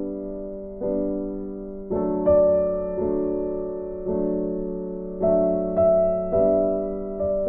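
Calm instrumental background music, a new note or chord struck about once a second, each one fading away before the next.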